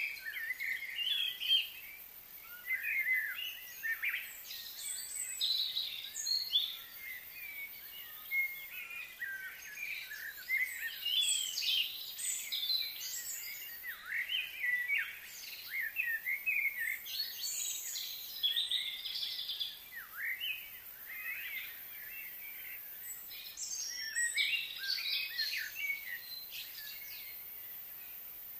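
Several birds chirping and singing at once, a busy stream of short rising and falling calls that thins out a little near the end.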